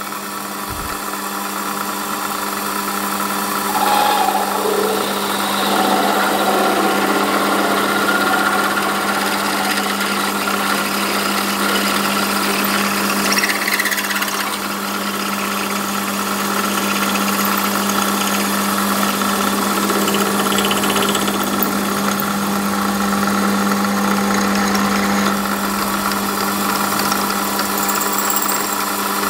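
Small metal lathe running with a steady hum while a 7 mm twist drill is fed into a spinning phosphor bronze bush to enlarge its bore. Irregular cutting noise comes and goes over the hum, most around four to eight seconds in and again near fourteen seconds. The drill is cutting well: much, much nicer.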